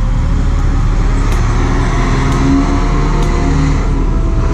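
A motor vehicle's engine running steadily, with a few faint clicks.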